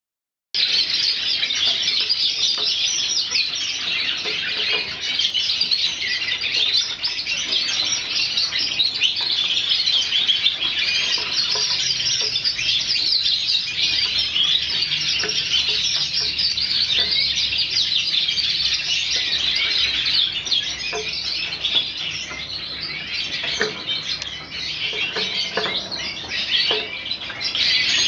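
Cage birds chirping and twittering, many calls overlapping in a continuous chatter, with occasional faint taps.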